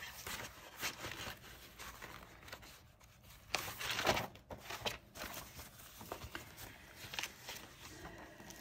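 Old paper booklets and leaflets being leafed through and shuffled by hand, rustling in short bursts, loudest around four seconds in.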